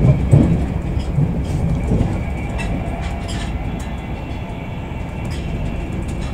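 Steady low rumble of wheels on rail heard inside a first-class Mark 4 coach of a Class 91-hauled express running at speed, with a few short clicks and knocks from the track, louder in the first two seconds.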